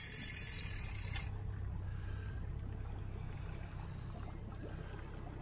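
A 50 hp outboard motor running steadily at slow trolling speed, a low even hum. A high hiss stops about a second in.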